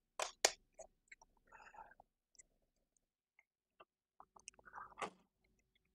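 Cardboard board-game tiles and pieces handled on a table: two sharp clicks at the start, a few faint taps and a soft rustle, then another cluster of light clicks and taps near the end.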